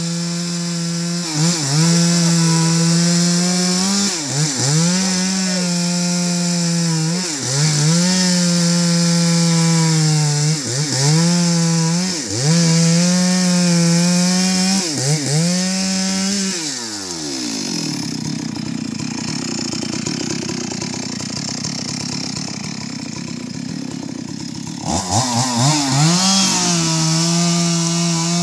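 Two-stroke chainsaw cutting through a log at full throttle, the engine dipping briefly and recovering every second or two as the chain bites into the wood. About 16 seconds in it falls to a rough idle, then revs back up to full speed near the end.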